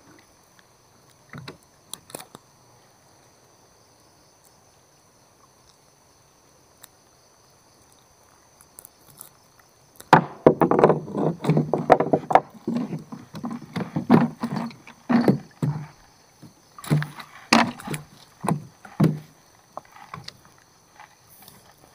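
Small boat with a gill net being hauled over the side. There are a few light taps for about ten seconds, then a busy run of irregular knocks, clatter and splashes against the hull for about ten seconds.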